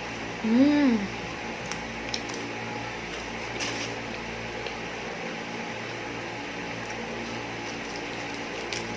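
A short hummed "mm" from a woman, rising then falling in pitch, about half a second in, over a steady background hum with a few faint small clicks.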